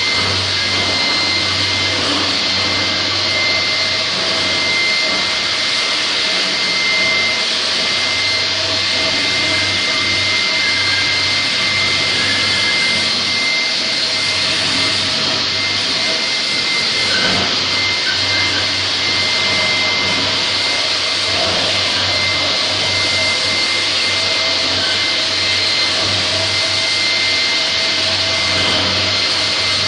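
LINAX floor grinder running steadily as its rotating disc head grinds a concrete floor, together with the hiss of its dust-collector vacuum. A steady high whine sits over the noise, which does not let up.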